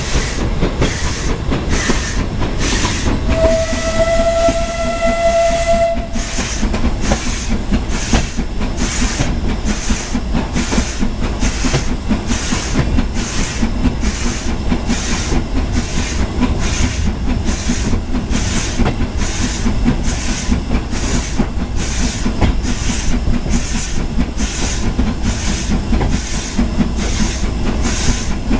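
Austerity saddle tank steam locomotive working along the line, its exhaust chuffing about twice a second over the steady rumble of the train's wheels on the track. About four seconds in, its whistle sounds one steady note for about two and a half seconds.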